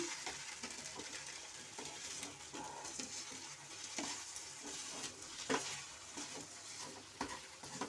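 Wooden spatula stirring and scraping cooked samak rice in a non-stick pan, with a few knocks of the spatula against the pan over a faint sizzle from the heat.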